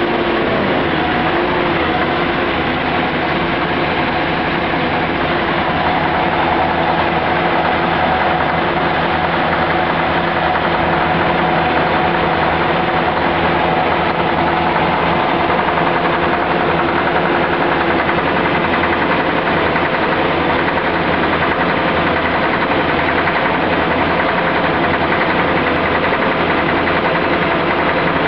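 Scania V8 diesel engine of a Techniwell wellpoint dewatering pump set running steadily.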